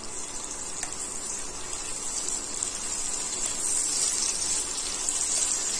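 Onion and crushed garlic frying in hot oil in a kadai, a steady high sizzling hiss as they are stirred.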